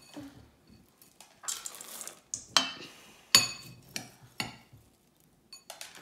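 A metal spoon clinking against a stainless steel mixing bowl a few times, each knock with a short metallic ring, the loudest a little after three seconds in; before that a short rustle as seeds are tipped into the bowl.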